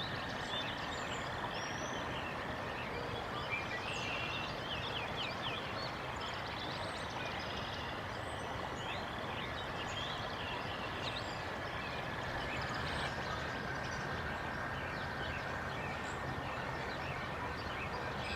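Songbirds chirping and trilling in a dawn chorus over a steady rushing background noise.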